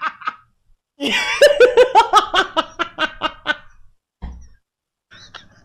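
A person laughing hard in a long run of rapid, rhythmic bursts starting about a second in, followed by a short low thump.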